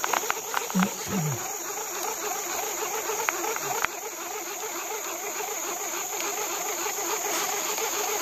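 Steady high-pitched buzzing of a forest insect chorus, with a fast pulsing chorus beneath it. A few sharp clicks and a brief low sound come in the first second and a half.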